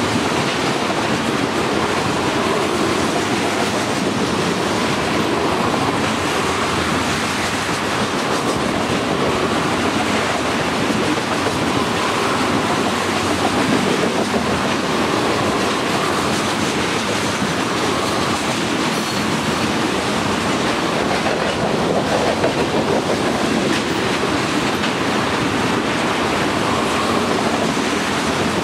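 Tank cars of a freight train passing close at speed: a steady rumble and clatter of steel wheels on the rails.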